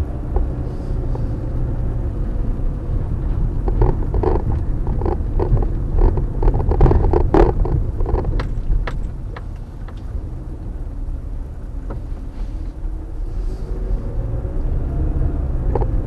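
Car driving, a steady low road rumble with scattered clicks and knocks from about four to nine seconds in.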